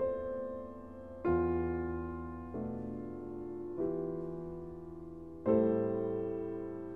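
Slow background piano music: soft sustained chords struck about every second and a half, each left to ring and fade.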